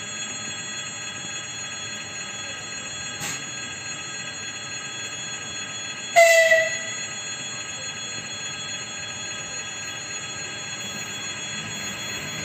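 An approaching electric train's horn gives one short, loud blast about halfway through, over a steady faint high whine. Near the end, the low rumble of the train drawing nearer begins to grow.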